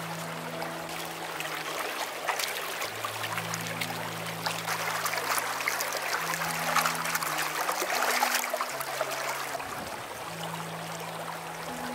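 Shallow stream running over stones, with splashing and trickling as hands rinse bamboo leaves in the water, loudest in the middle. Soft background music with long held low notes plays underneath.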